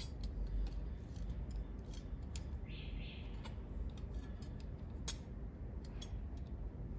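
A series of small, sharp clicks with a brief scraping sound about three seconds in, over a low steady hum.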